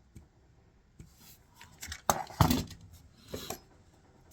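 Scattered light clicks and knocks of short wooden board pieces and hand tools being handled and set down on a workbench, with one heavier thud a little past two seconds in.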